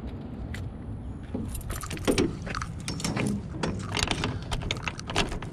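Keys and the metal latch of an enclosed cargo trailer door jingling and clinking as the door is worked, a quick run of sharp metallic taps starting about a second and a half in, over a low steady rumble.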